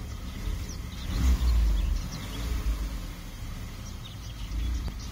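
Car engine blipped on the accelerator, swelling louder about a second in and settling back to a steady idle. Birds chirp faintly in the background.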